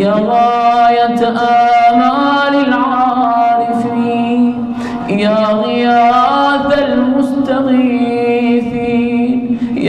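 A man's voice chanting an Arabic supplication in a slow, melodic Iraqi recitation style, drawing out long held notes with ornamented turns. It comes as two long phrases with a short breath about five seconds in.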